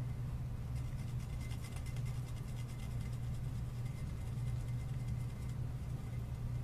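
Metallic Sharpie marker tip rapidly tapping and scratching over a stencil on a glazed ceramic platter, from about a second in until about a second before the end, over a steady low hum.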